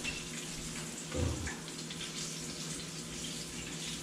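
Pieces of bluefish frying in oil in a pan, a steady sizzle, with a soft knock about a second in as tongs move them.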